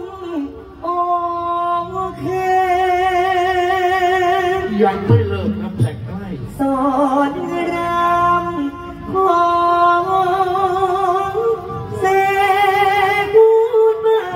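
Thai likay singing: a solo voice through a stage microphone, holding long ornamented notes with wide vibrato in several drawn-out phrases with short breaths between.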